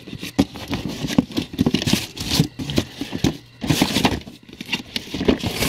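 Boxed collectibles and cardboard packaging being handled: irregular knocks and taps, with rustling and sliding swells about two, four and five and a half seconds in.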